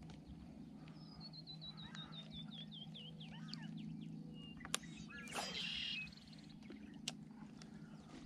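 Songbirds singing: a cascade of quick chirps falling in pitch over about two seconds, then a short buzzy trill about halfway through, with two sharp clicks.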